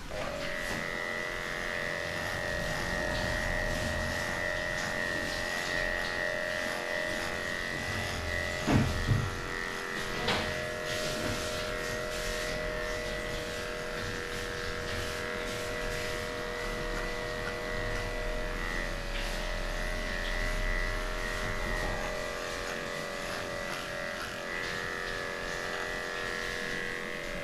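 Cordless dog-grooming clipper switched on and running with a steady electric hum while shaving off a matted coat, with a few short knocks about nine and ten seconds in.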